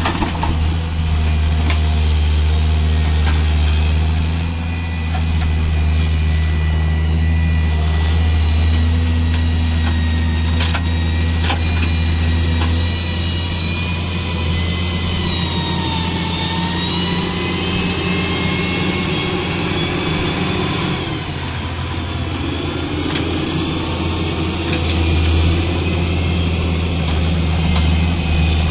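Tata Hitachi EX130 excavator's diesel engine running steadily while the machine digs and swings, with a high whine that dips and then rises again in pitch around the middle. A few short knocks are heard in the first half.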